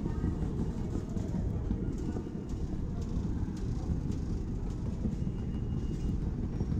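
Wheeled suitcase rolling over a tiled station floor, a steady low rumble with faint scattered ticks.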